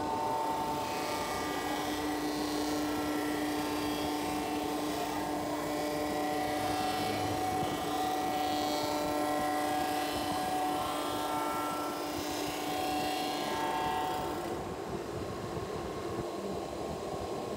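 Cylinder-head resurfacing machine running steadily as its rotary cutter machines the head's deck face, a continuous mechanical drone with several steady tones and a hiss. The hiss eases about three-quarters of the way through.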